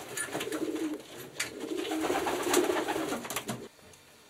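Racing homing pigeon cooing low in two stretches that stop about three and a half seconds in, with a few faint clicks.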